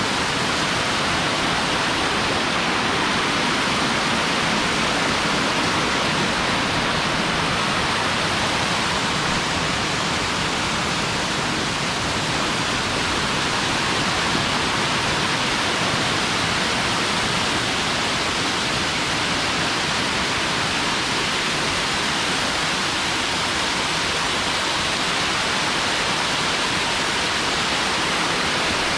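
Steady, even rush of water from a wall of small waterfalls cascading over rock ledges into shallow pools.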